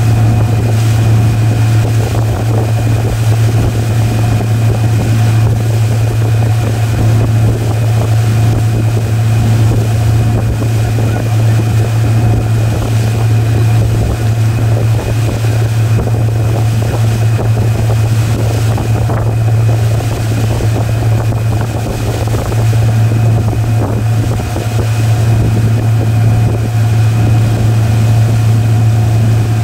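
Motorboat engine running steadily at speed under the load of towing an inflatable tube, a constant low hum, with wind buffeting the microphone and the rush of water in the wake.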